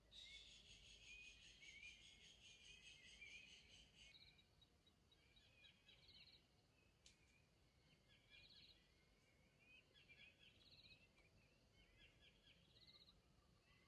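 Faint natural ambience of birds and insects calling. A dense, pulsing high buzz with chirps fills the first four seconds. After that a short high call repeats about every two seconds over scattered chirping.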